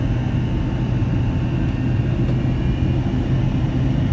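Airliner cabin noise on approach: a steady drone of engines and rushing air with a constant low hum.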